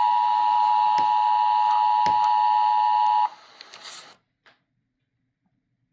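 Emergency Alert System two-tone attention signal, the 853 Hz and 960 Hz tones sounding together as one steady, loud dual-pitched tone. It cuts off abruptly about three seconds in, leaving only faint hiss and a soft click.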